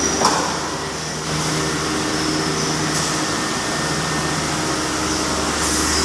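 PVC pipe extrusion line machinery running: a steady mechanical hum with a short knock about a quarter second in, and a hiss that grows louder near the end.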